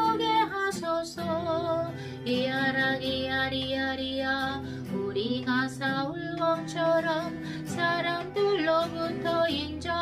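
A woman's voice singing a slow melody of long held, slightly wavering notes over acoustic guitar accompaniment.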